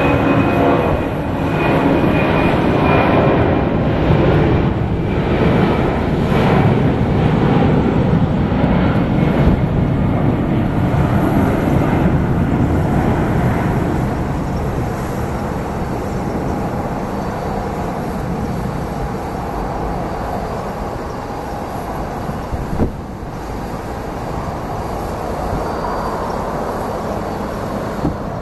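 Boeing 757-200F freighter's Pratt & Whitney PW2040 turbofans at takeoff thrust: a loud jet roar with a steady whine in it as the aircraft rolls past and lifts off, then fading slowly as it climbs away. A brief thump about two-thirds of the way through.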